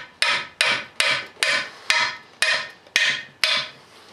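A steel hand tool working the port plug in a Cummins cylinder head: about nine sharp metallic clicks, evenly spaced at about two and a half a second, each ringing briefly.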